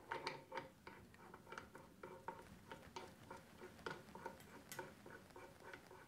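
Faint, irregular light metallic clicks and ticks, a few a second: a metal adapter being screwed by hand up into the head of a grommet/button press.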